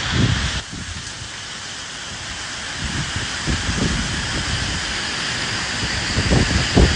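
Steady rain hissing with gusts of wind rumbling low underneath, stronger near the end. The sound drops suddenly a little under a second in, then slowly builds back.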